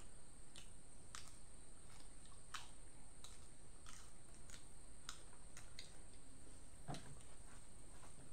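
A person eating by hand: soft clicks and crunches of chewing and handling food, about one or two a second, over a steady high-pitched whine.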